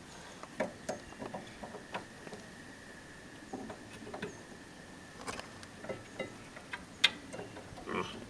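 Scattered light clicks and taps of metal brake hardware being pushed into place by hand in a rear brake caliper bracket, with one sharper click about seven seconds in.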